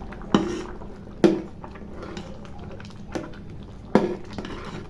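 A metal spoon stirring thick khichdi in a metal pot, knocking against the pot four times with a short ring, over a faint bubbling simmer.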